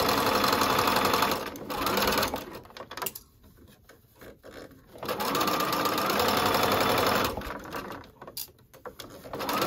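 Bernina sewing machine running a straight stitch through the fabric in starts and stops. It sews for about a second and a half, gives a short burst, pauses for about two seconds, sews again for about two seconds, stops, and starts once more near the end.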